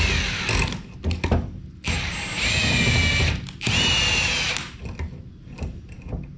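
A handheld power tool runs in two bursts of about a second each, with a whine that sags slightly in pitch, between clicks and knocks of hand tools on metal.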